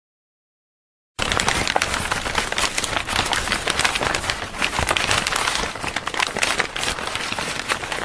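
Dense, steady crackling noise from the sound effect laid under a channel logo animation, starting abruptly about a second in.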